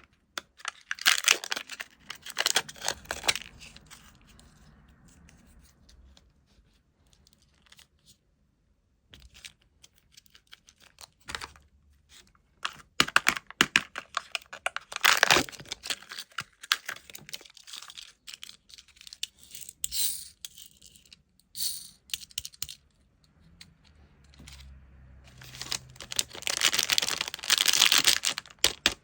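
Plastic candy wrappers and packaging being crinkled and torn open, in bursts of crackling with scattered clicks and taps between them.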